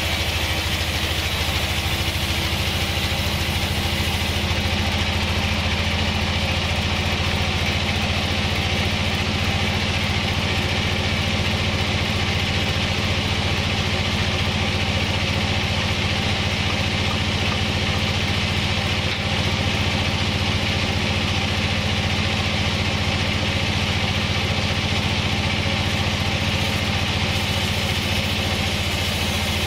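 Large bandsaw mill running steadily: a constant low machine hum with a steady hiss on top.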